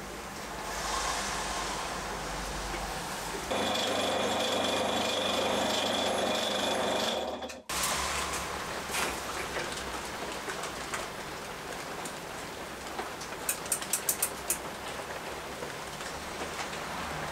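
Small metal clicks of a dial caliper and a micrometer being set on a freshly turned steel crank pin, with a quick run of clicks from the micrometer about three-quarters of the way through. For a few seconds early on, a steady mechanical hum with a high whine sits over it and cuts off abruptly.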